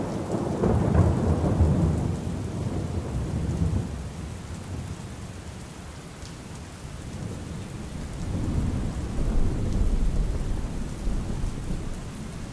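Steady rain with rolling thunder: one rumble at the start that fades over the first few seconds, and a second that swells about eight seconds in and dies away.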